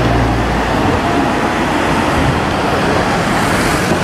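City road traffic, with a car engine humming low and steady until about half a second in, then a rush of traffic noise as a bus passes close near the end.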